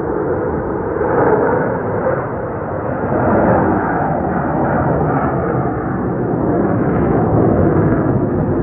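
Blue Angels jets flying overhead: loud, steady jet engine noise that swells a little about a second in and again around three and a half seconds.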